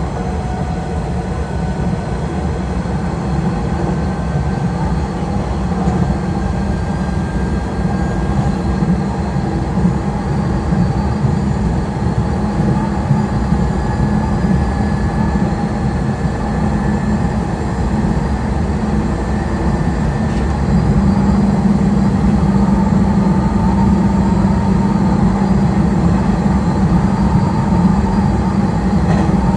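Nishitetsu electric train running along the track, heard from the cab: a steady rumble of wheels on rails with a faint whine that rises slowly in pitch, growing a little louder about two-thirds of the way through.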